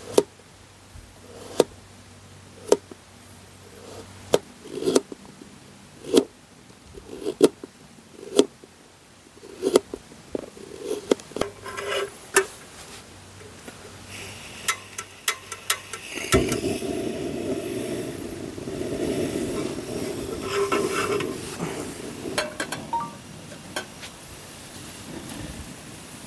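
A series of sharp knocks, about one a second, through the first half; then, about two-thirds of the way in, a louder steady rushing noise starts suddenly and carries on.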